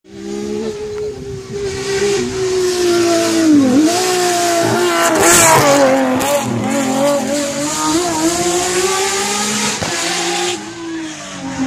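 Hillclimb race car engine at full throttle, its pitch dropping twice at upshifts and climbing again as the car passes close by, loudest about five seconds in.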